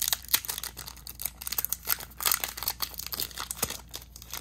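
Foil wrapper of a Pokémon booster pack crinkling as it is handled and torn open by hand, a rapid, irregular run of crackles.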